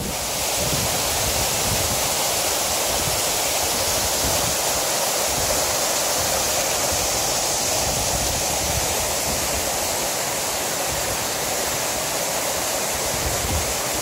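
Waterfall cascading down rock slabs: a steady, close-up rush of falling and splashing water.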